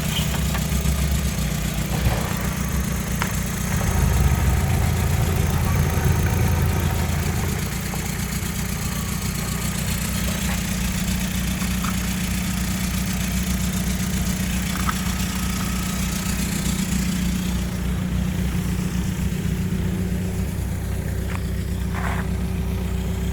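Opel Astra H's 1.6-litre Z16XER four-cylinder petrol engine running at idle on an engine test, steady throughout. The engine is a little louder for a few seconds near the start, then settles back.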